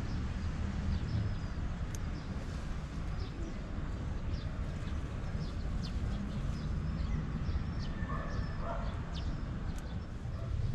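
Outdoor garden ambience: a steady low rumble with small birds chirping throughout. A few sharp clicks of scissors snipping leaves stand out, one about two seconds in and one near the end.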